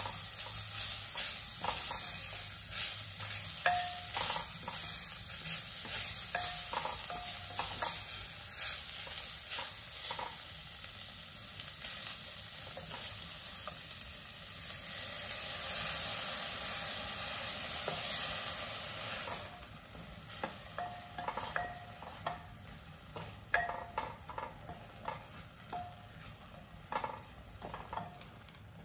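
Wooden spatula stirring and scraping a chopped green herb paste in a pot, with steady sizzling. About two-thirds through, the sizzle drops away and the single scrapes of the spatula against the pot stand out.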